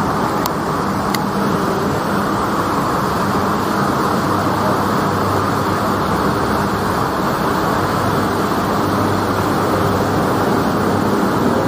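Steady urban background noise: a continuous even rush with a low hum underneath, and a couple of light clicks in the first second or so.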